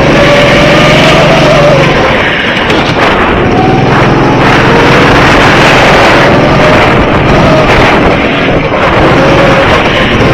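Go-kart running on track, its motor note rising and falling as it speeds up and slows, with heavy wind noise on the microphone.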